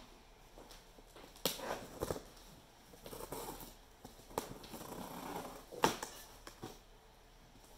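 Scissors slitting the packing tape along a cardboard box's seam, with sharp snips and clicks. Between them the cardboard rustles and scrapes as the flap is pried up.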